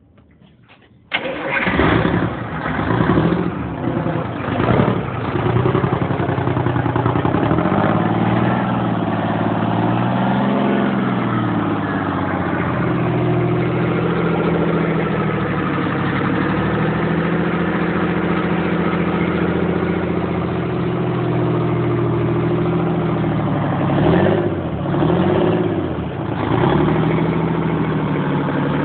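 Detroit Diesel two-stroke diesel engine starting for the first time after a full rebuild: it catches about a second in, runs unevenly with a few surges for several seconds, then settles into a steady idle. The revs rise and fall briefly about ten seconds in and again near the end.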